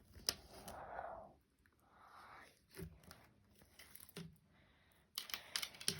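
Slime being handled and squeezed by hand: faint squishing and sticky crackling with a few sharp clicks, getting busier near the end.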